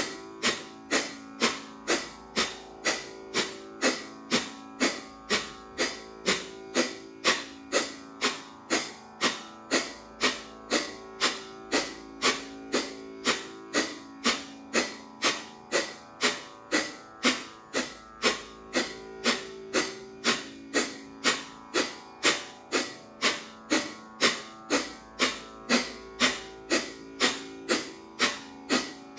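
Rhythmic Kapalabhati breathing: short, forceful nasal exhalations, about two a second at an even pace, over soft guitar music.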